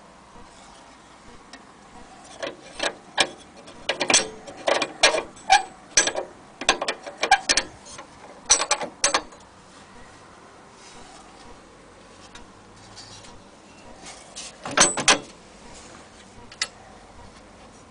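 Irregular mechanical clicks and clatter in two bursts, a longer run in the first half and a shorter one later, then one last click.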